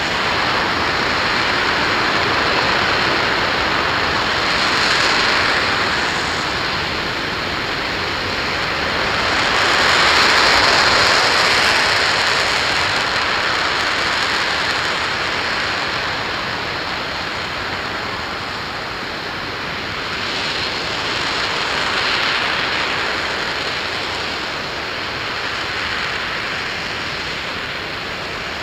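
RS-25 liquid-hydrogen/liquid-oxygen rocket engine firing steadily in a hot-fire test: a loud, continuous rushing noise with no distinct tones. It swells a little about five and ten seconds in, then eases slightly.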